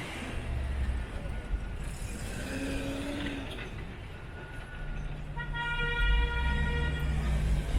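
City traffic rumble, with a vehicle horn sounding one held honk of about two seconds in the second half.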